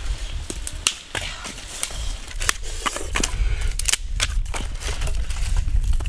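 Dry wooden sticks clacking and cracking against each other as they are gathered up and dropped into a pit: a series of sharp, irregular knocks.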